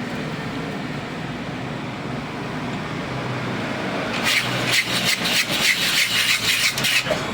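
Ice-shaving machine running with a steady low hum. About four seconds in, a loud, rapid grating scrape starts as the blade shaves the ice block, and it lasts for about three seconds.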